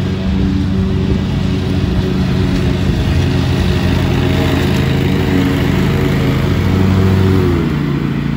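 Lawn mower engine running steadily, its pitch and level dropping slightly near the end.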